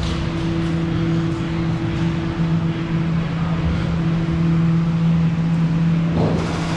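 Steady low mechanical hum that holds one pitch throughout, with a rougher noise underneath.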